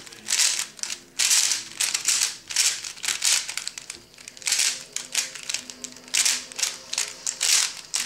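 Lubix-lubricated DaYan Zhanchi 3x3 speedcube being turned fast by hand: layers clacking and scraping in quick flurries of turns, with short pauses between them.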